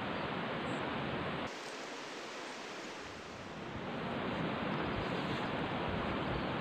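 Steady rushing noise of a flowing river at the bank. About one and a half seconds in the noise thins and loses its low end, filling back out around four seconds in.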